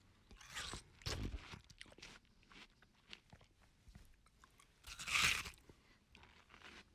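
A person eating watermelon: wet crunching and chewing, with a loud fresh bite about five seconds in.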